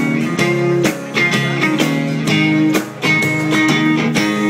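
Guitar-led music from a song's instrumental passage, with a quick run of plucked or strummed notes.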